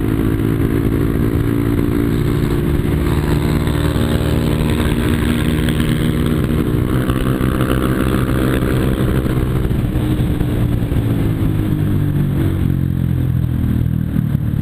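Yamaha Fazer 250 single-cylinder motorcycle engine running through an aftermarket exhaust, a steady drone that eases slightly lower in pitch about ten seconds in.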